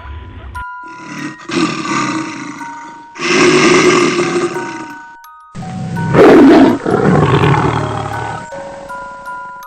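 Several loud big-cat-like roars over a light melody of plinking single notes. The loudest roar comes about six seconds in.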